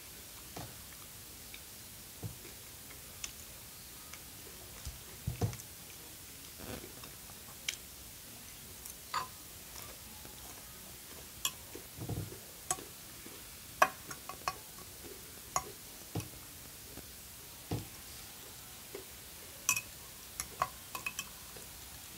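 Eating sounds: a metal fork clicking and tapping at irregular moments against a glass bowl of noodles, with a few soft, duller mouth and handling sounds between.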